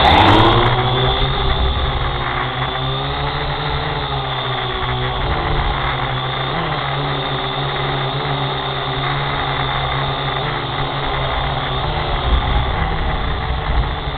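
Small multirotor drone's electric motors and propellers starting up abruptly with a quick rising whine, then running as a steady buzzing hum while it lifts off and climbs.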